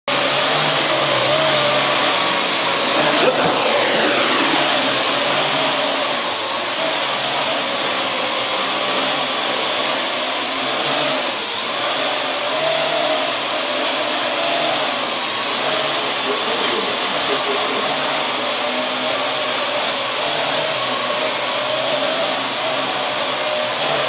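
Parrot AR.Drone quadcopter in flight, its four electric motors and propellers making a steady whirring hum whose pitch wavers up and down as it is steered.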